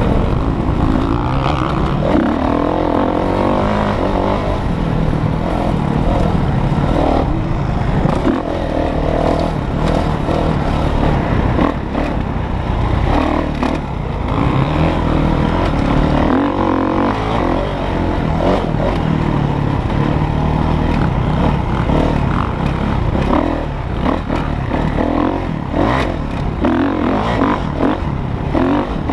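Dirt bike engine running hard on a rough dirt track, its pitch rising and falling again and again as the rider accelerates and shifts, heard close from the riding bike. Short knocks and rattles from the bumps are scattered through it.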